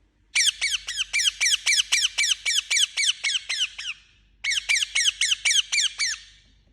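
Indian ringneck parakeet giving two rapid runs of short, shrill squawks, about five a second, each call falling in pitch, with a brief break a little past halfway.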